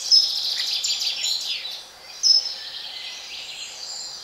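Several songbirds singing and chirping: a busy run of short high notes and quick glides, one sharp loud call about two seconds in, then sparser calls.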